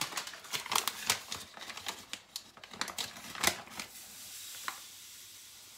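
Sugar being weighed out on a kitchen scale: a run of crackling, rustling handling sounds with a few sharper clicks, then a faint steady hiss for the last couple of seconds.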